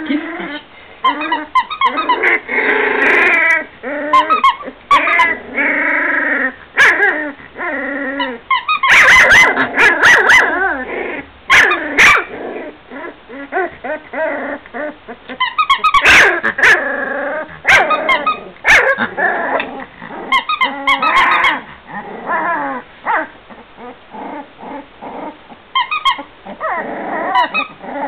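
A litter of 17-day-old puppies yipping, whining and squealing almost without pause, with small barks and growls mixed in; the calls come in quick overlapping runs, loudest about a third and again about halfway through.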